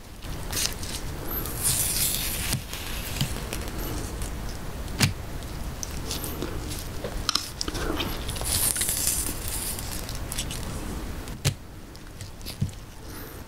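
Gloved hands tearing a whole leaf of spicy napa-cabbage kimchi into strips: wet squishing and tearing sounds, with a couple of sharp clicks.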